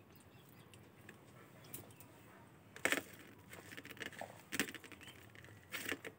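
A person eating rice mixed with dal and potato by hand: a few short eating sounds, three louder ones in the second half.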